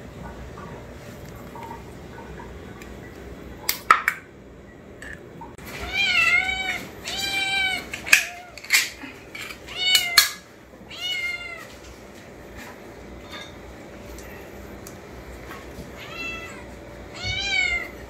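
Kittens meowing loudly and repeatedly, begging to be given canned food: a run of rising-and-falling meows from about six seconds in, and a few more near the end. A few sharp clicks come before and among the meows.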